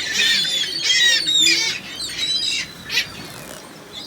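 Gulls calling: several overlapping high, squawking cries, densest in the first two seconds, then a few separate calls before the end.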